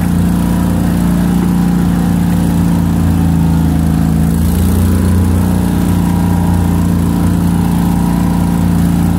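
Vehicle engine running steadily, a constant low drone heard from inside the vehicle as it drives along.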